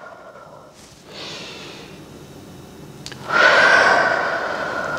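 A woman breathing audibly in time with a cat-cow stretch: a soft inhale about a second in, then a loud, long exhale starting a little past three seconds in and slowly fading.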